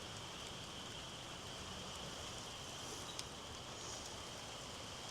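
Light rain starting to fall, a faint steady hiss.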